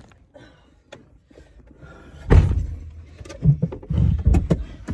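A car door thumps shut about two seconds in, followed by a few softer knocks and thuds as someone settles into the seat.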